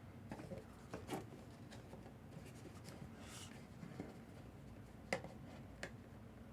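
Faint handling noises: soft rubbing and rustling with a few light clicks as an autographed baseball and its packaging are turned over in the hands.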